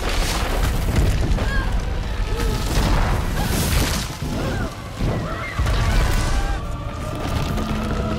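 Film battle soundtrack as the giant tree is destroyed: deep booms and crashing debris over orchestral music, with high cries rising and falling through it.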